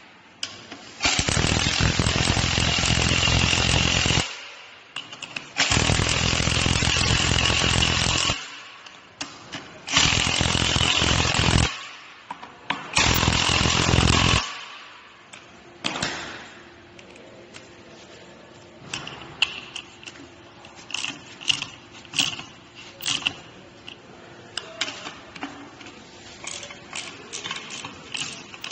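Cordless power driver with a socket running down the bolts of a metal pipe repair clamp in four bursts of two to three seconds each. After that come lighter, scattered metal clicks and taps as the clamp is handled.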